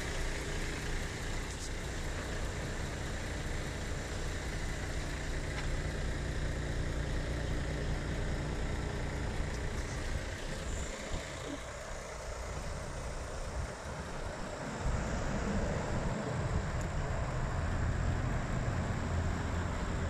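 Iveco Stralis 460 Euro 6 truck's diesel engine idling steadily, with a low hum that fades for a few seconds past the middle and then comes back.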